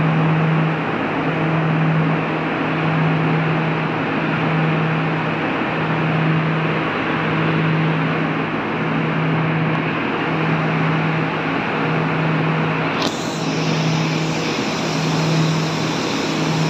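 A ship's machinery din heard on the open deck of a cargo ship under way: a steady rushing noise with a low hum that pulses at a slow, even rate. The hiss turns brighter about thirteen seconds in.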